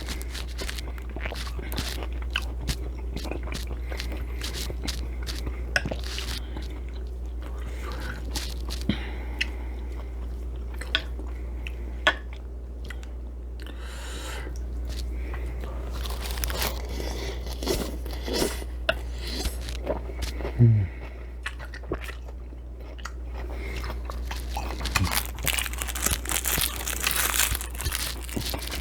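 A person chewing and crunching food close to the microphone, with many short sharp clicks, over a steady low hum.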